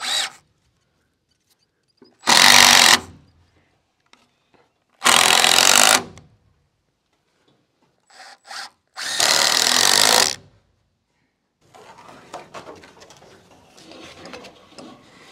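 Cordless drill driving screws into a wooden roof truss in several separate runs of about a second each, with two quick blips before the last run. Faint knocks and rustling follow near the end.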